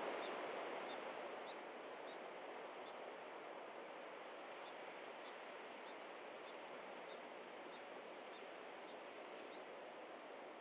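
Faint steady hiss that fades down over the first couple of seconds, with short high chirps repeating about twice a second.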